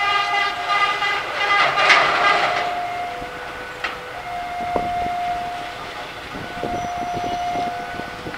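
CC 300 diesel-hydraulic locomotive's horn sounding once for about two and a half seconds, over the steady electronic warning tone of a level-crossing alarm. In the second half, motorbikes and cars rumble and clatter over the crossing while the alarm carries on.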